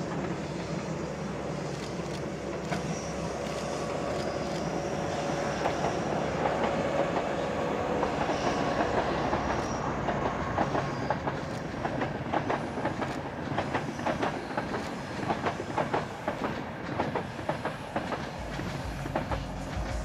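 Passenger train passing on the line off the steel viaduct, a steady rumble that grows louder as it approaches. From about halfway the wheels click rapidly over the rail joints as the coaches run by close.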